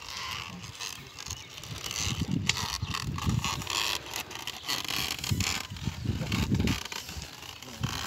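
Scraping and shuffling of a pair of bullocks pulling a wooden plough through dry, clodded soil, with irregular soft thuds and short scratchy clicks.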